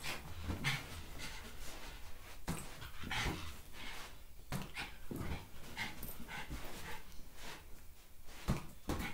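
Small dog panting in short, quick breaths, with a few sharp thumps in between.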